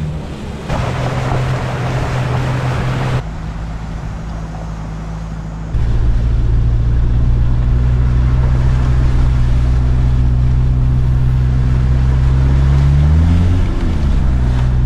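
Four-wheel drive's engine running as it drives through floodwater on a dirt road. Water splashes loudly from about a second in to about three seconds. After that, the steady engine hum is heard close up, with a brief rev near the end.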